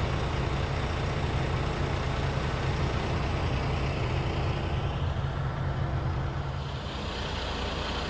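Combine's diesel engine running steadily nearby, a low even hum with a hiss of fan and machinery over it, easing slightly near the end.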